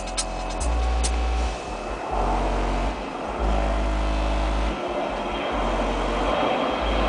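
Loud electronic music with deep sub-bass notes that start and stop abruptly, played through a Volkswagen Fusca's (Beetle's) car sound system.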